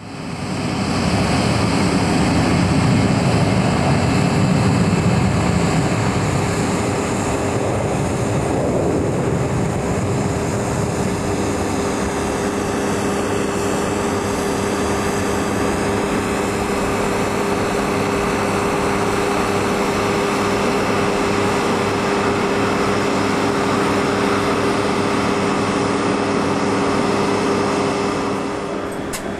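Jet engine noise on an airport ramp: a steady high turbine whine over an even hum, with a heavier low rumble in the first several seconds.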